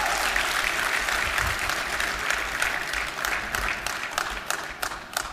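Audience applauding, a dense sound of many hands clapping that thins out near the end into a few last separate claps.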